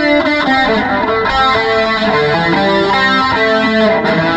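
Electric guitar playing a lead line of single notes that change several times a second, stepping down to lower notes near the end.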